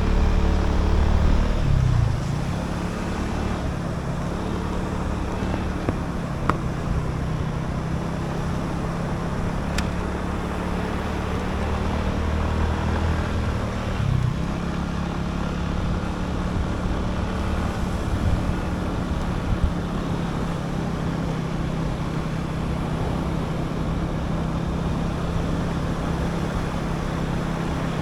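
A motor vehicle's engine running steadily at an even pitch, under a constant rush of noise, with a few faint clicks.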